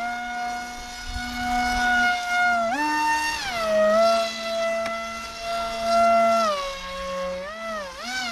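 Foam RC plane's motor and propeller whining, the pitch stepping up and down with the throttle and wavering quickly up and down near the end.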